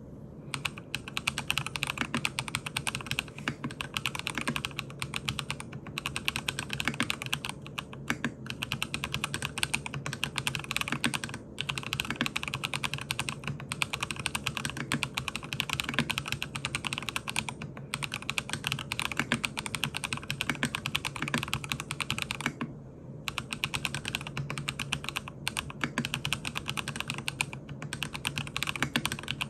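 Continuous fast typing on a MACHENIKE K500F mechanical keyboard fitted with Haimu Gray Jade tactile switches, which are factory-lubed and have dual-stage springs. The keystrokes run on steadily, with a brief pause about three-quarters of the way through.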